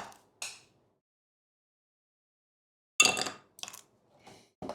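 Battery spot welder firing on a 0.1 mm strip stacked on a 0.2 mm strip: one loud sharp snap about three seconds in, then a few smaller crackling pops as sparks fly. A couple of light clicks sound right at the start.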